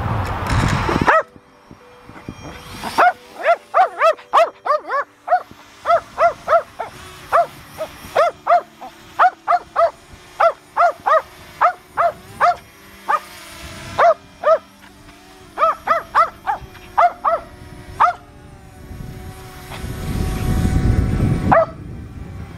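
Small dog yapping, short high barks about two a second for some fifteen seconds. Near the end there is a loud rush of noise.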